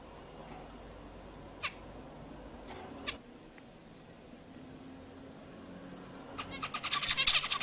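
Zebra finches calling: a few short single calls, then from about two-thirds of the way in a rapid, loud run of calls.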